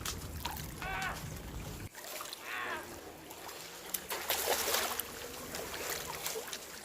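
Seawater splashing and lapping in shallow water, with a louder splash about four seconds in. Faint voices can be heard.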